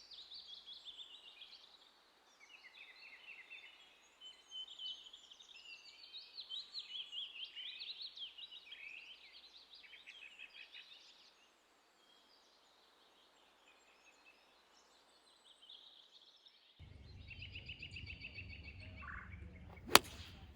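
Songbirds singing, many quick chirping phrases, which fade out about eleven seconds in. Near the end a low rumble sets in, and about twenty seconds in comes a single sharp crack, the loudest sound here: a wooden-shafted hickory golf club striking a gutta-percha golf ball.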